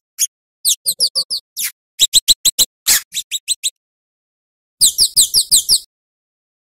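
Scarlet-headed flowerpecker (cabai jawa) calling: runs of sharp, thin, high-pitched down-slurred notes, about five to ten in quick succession, broken by short pauses.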